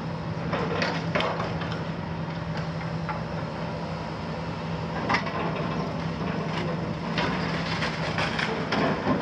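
Hitachi 350 demolition excavator's Isuzu six-cylinder diesel running steadily under load, with a string of sharp knocks and clatter as its steel sorting grapple handles concrete rubble, the loudest about five seconds in.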